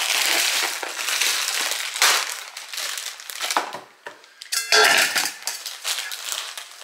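Thin plastic bag of powdered baking mix crinkling and rustling as it is squeezed and emptied into a stainless steel bowl. A short high-pitched squeak cuts in a little after the middle.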